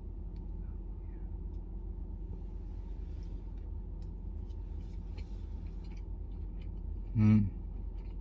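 Steady low room hum with a few faint small clicks, then about seven seconds in a brief, loud hummed vocal sound from the man about to eat.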